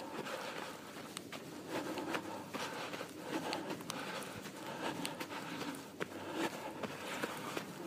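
A runner's footsteps in fresh snow: a string of short, uneven crunches.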